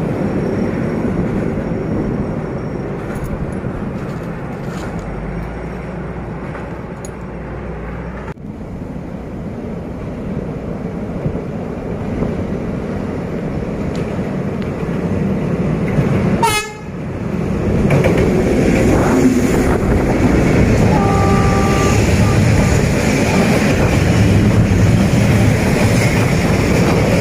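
Freight train rolling by on the rails, the steady clatter and rumble of its wagons, broken twice by abrupt cuts. A D20E diesel-electric locomotive sounds one short horn blast past the middle, and the wheel noise grows louder near the end as container wagons pass close.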